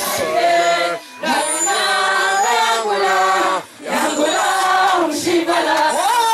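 A women's choir singing together, led by a woman singing into a microphone. The phrases break off briefly twice, about a second in and again past the middle.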